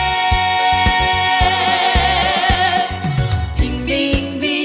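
Trot song with a live band: a long held note with vibrato over a steady drum beat, then a short instrumental break with a falling bass line just before the next chorus.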